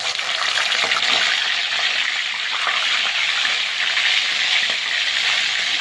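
Bangus (milkfish) pieces sizzling loudly in hot cooking oil, the sizzle starting suddenly as the fish goes into the pan and holding steady.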